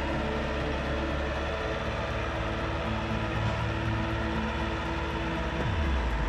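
Trencher engine running steadily, with a dense mechanical din over it; near the end the engine's pitch drops sharply.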